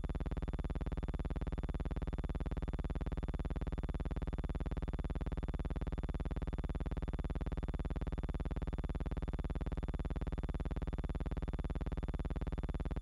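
A steady, harsh buzzing tone with a rapid, even pulse, unchanged in pitch and level throughout.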